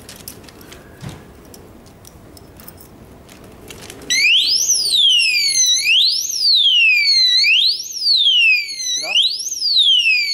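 Alarm padlock being tampered with: light clicks and rattles, then about four seconds in its siren goes off. The siren is a loud, high wail that sweeps up and down about once a second, set off by the lock being disturbed.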